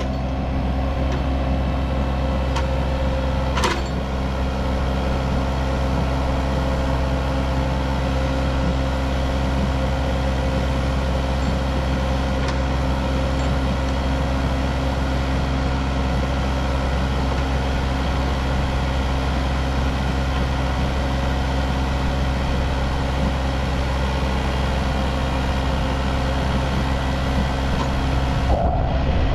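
Yanmar mini excavator's diesel engine running steadily while its hydraulic boom lifts a concrete block on a chain. There is a single sharp click about four seconds in.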